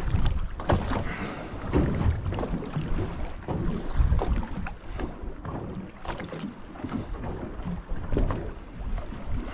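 Wind buffeting the microphone in uneven gusts, with water slapping and lapping against the hull of a small fishing boat on choppy sea.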